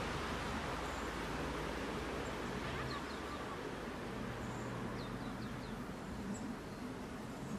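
Double-deck electric regional train approaching round a curve: a steady rumble, with a low hum coming in about halfway. A small bird chirps a few short, falling notes about three seconds in and again around five seconds.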